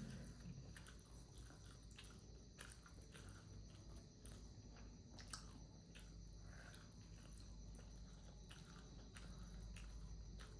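Faint chewing and biting as someone eats momos (steamed dumplings), with irregular small mouth clicks several times a second.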